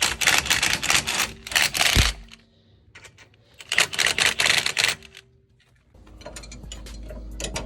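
Two bursts of rapid mechanical clattering, each a second or two long, with a short quiet between them. Background music comes in near the end.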